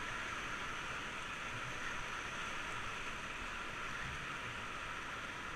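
Steady rush of fast-flowing river water heard from a raft.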